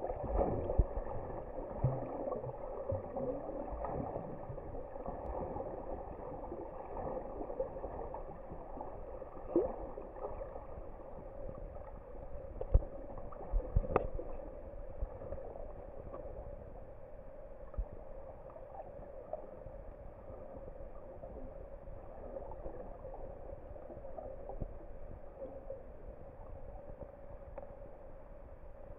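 Muffled underwater ambience picked up by a camera below the surface: a steady dull rush of water with a faint hum, broken by scattered clicks and knocks, the sharpest about halfway through.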